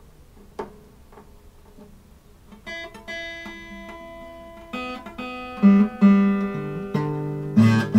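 Acoustic guitar after a couple of light clicks: first single strings plucked one after another, then louder strums. The strings are played to test whether the EZ Fret chord device's buttons are clear of the strings or still touching and ringing.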